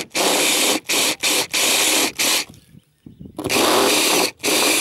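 Power drill with a stepped cone bit boring out a hole in a camper van's roof panel, the trigger worked in a string of short bursts with a pause of about a second in the middle.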